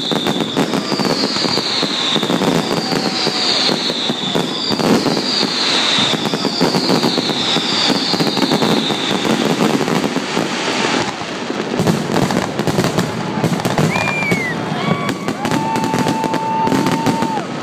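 Fireworks finale: a loud, dense, continuous barrage of shell bursts and crackling. A run of about six short falling whistles, roughly one a second, sounds in the first half, and a steady held tone comes near the end.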